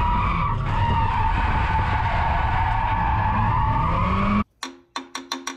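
Nissan 240SX (S13) heard from inside the cabin on track, engine running hard with tyres skidding and the revs rising near the end. It cuts off abruptly about four and a half seconds in, followed by a quick run of about five sharp pitched hits.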